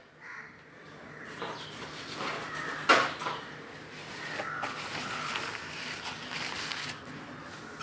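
Faint room noise with a single light knock about three seconds in.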